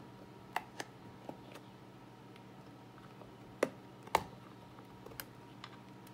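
Short sharp clicks and taps as a hard drive's metal top cover is prised loose from its case, with two louder clicks a little past halfway.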